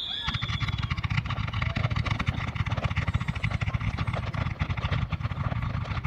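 Fireworks barrage: dense rapid-fire bangs and crackling from low-bursting shells, running together into a continuous rumble. A falling whistle from a whistling firework fades out in the first second.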